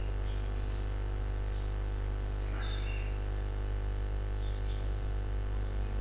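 Steady electrical mains hum with a buzzy low drone, heard over a video-call line, with a bird chirping faintly a couple of times in the background.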